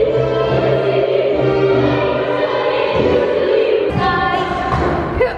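Music with choir-like singing playing for a dance routine. It stops abruptly about four seconds in, and voices follow.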